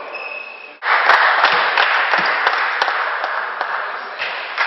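Spectators clapping in applause after a point ends in a table tennis match. The clapping starts suddenly about a second in and dies down near the end.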